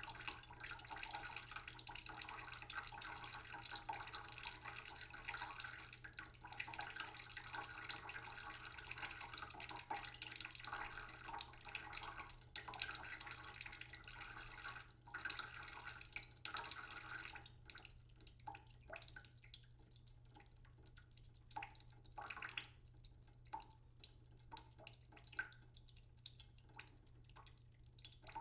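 Water running from a kitchen tap, a steady rush that stops about two-thirds of the way through. After that come scattered light clicks and taps.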